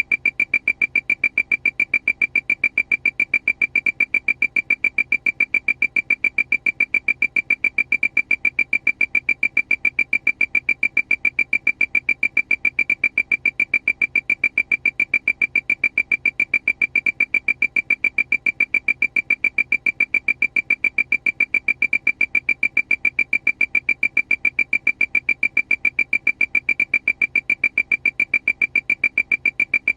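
Aircraft warning alarm: a high-pitched beep repeating rapidly and evenly, about five beeps a second, without change.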